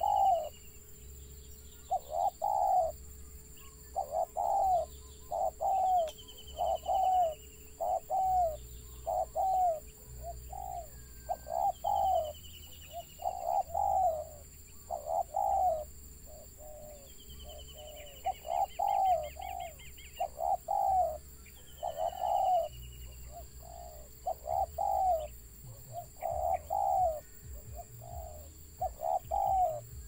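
Spotted dove cooing over and over, phrases of several short coos every second or two in the broken, stuttering ('gagap') style. Another bird gives high, falling chirp series, with a quick trill near the middle.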